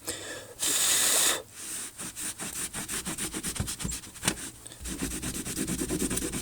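Rapid scratching and rubbing on a soldered copper seam, many short strokes a second, with a brief burst of hiss just under a second in.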